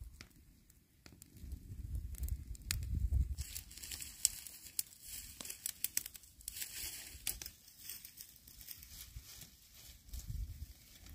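Rustling and crinkling of hands working among dry leaves, twigs and a plastic bag, with scattered sharp cracks, as fish are skewered on bamboo and set by a campfire.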